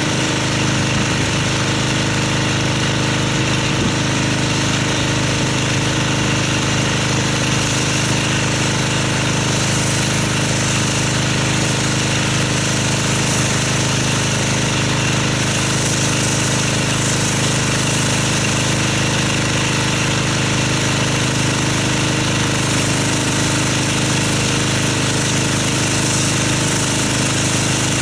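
Pressure washer running steadily with a constant hum while its wand sprays a jet of water against the car's body and wheel, rinsing off the soaked-on foam.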